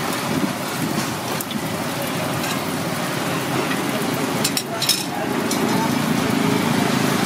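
Sesame-coated banana fritters deep-frying in a wide pan of hot oil, a steady crackling sizzle. A few sharp metallic clicks of the steel tongs against the pan come a little past halfway.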